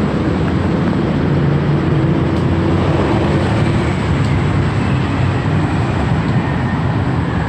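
Steady road-traffic rumble: motor engines and tyre noise running continuously with a low hum.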